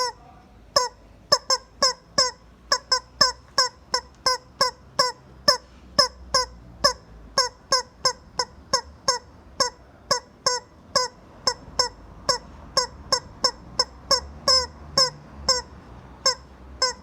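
Rubber chicken squeeze toy being squeezed over and over, giving short honking squeaks about two to three a second at an uneven pace.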